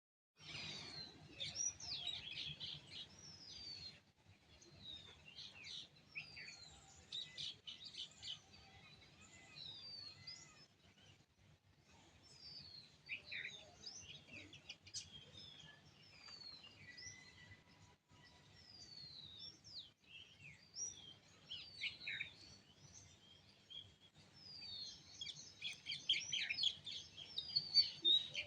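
Several small songbirds chirping and twittering in a morning chorus, with many quick, mostly downward-sliding notes overlapping one another. The chirping is busiest in the first few seconds and again near the end.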